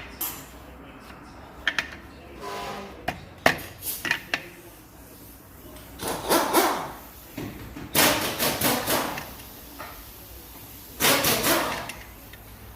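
Metal tools and parts knocking and clicking as a clutch is fitted to a new flywheel, then three bursts of rapid clattering of about a second each, typical of bolts being run in with a ratchet or power tool.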